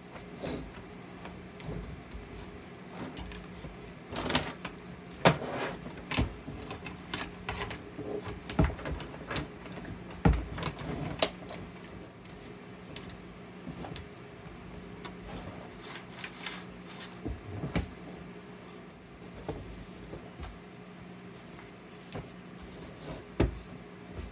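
Irregular clicks and knocks of small wooden parts as wooden tread belts are handled and fitted onto a wooden toy bulldozer, with a cluster of louder knocks several seconds in, over a steady low hum.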